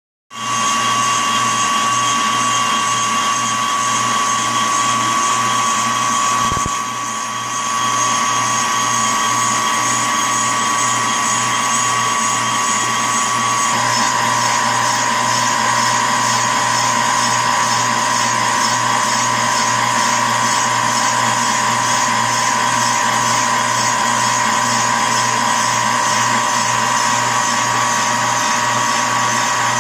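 Metal lathe running a boring bar through a Stuart Sirius steam engine crankcase, line-boring the main bearing bores: a steady high machine whine with a faint regular pulsing underneath. About seven seconds in there is a single knock and the sound briefly drops, and about fourteen seconds in the highest tone steps slightly lower.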